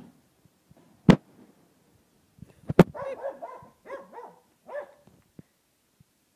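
A sheepdog barking: a quick run of short barks about three to five seconds in, after two short, sharp, loud sounds about a second and about three seconds in.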